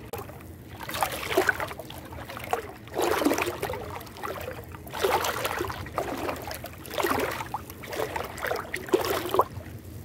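Shallow sea water sloshing and splashing close to the microphone in surges about every two seconds, as small waves move around the camera held at the water's surface.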